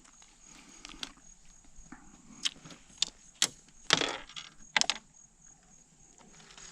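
A series of sharp clicks and knocks, about seven in all, with the loudest a little past the middle and a quick double just after it: a freshly landed catfish and the hook and tackle being handled in a small boat.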